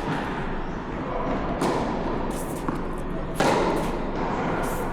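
Tennis balls struck by rackets in a rally: two sharp hits about two seconds apart, the second one the loudest, over a steady background hiss.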